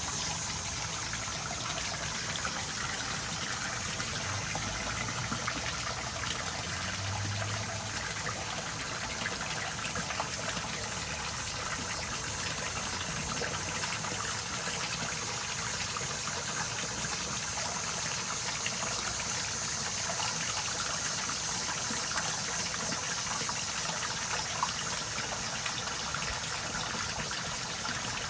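Steady sound of running water in a fish pond, even and unbroken.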